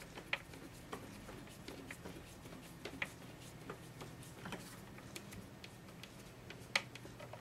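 Hand screwdriver turning screws into a Kirby upright vacuum's metal housing: faint, irregular small clicks and taps of the tool and screws, with a few sharper clicks about a third of a second in, about three seconds in and near the end.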